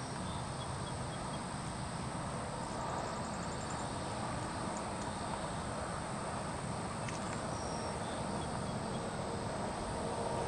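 Steady outdoor background noise, an even hiss with a low rumble, with a few faint high chirps and a short rapid high trill about three seconds in.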